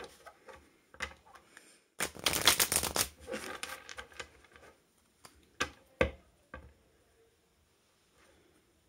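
A deck of oracle cards being shuffled by hand: a dense flurry of card flicks about two seconds in lasting about a second, then a few single card snaps and taps.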